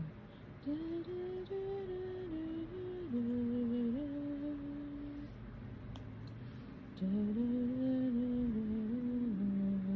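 A woman humming a slow, wordless tune in two phrases of held notes that step up and down, with a pause of under two seconds between them.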